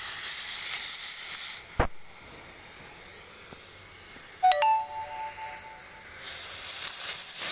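Oxy-fuel cutting torch hissing loudly as it cuts through a steel pipe. The hiss drops away abruptly with a single click about one and a half seconds in, a two-note chime sounds around the middle, and the loud hiss comes back near the end.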